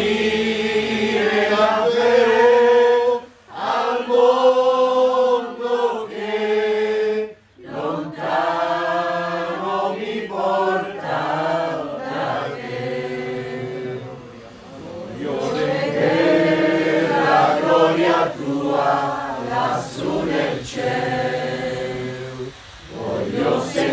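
Small group of women singing an Italian hymn together, holding long notes and pausing briefly between phrases at about three and seven seconds in.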